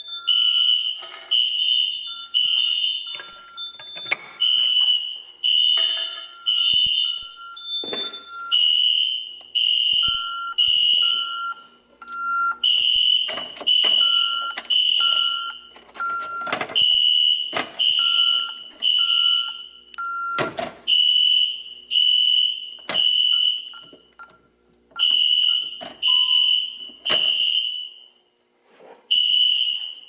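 Fire alarm notification appliances sounding in the code-3 temporal pattern: three loud, high-pitched blasts, a pause, and again, about every four seconds. A fainter, lower beeping tone sounds along with it and stops about two-thirds of the way through, and sharp clicks and knocks are scattered throughout.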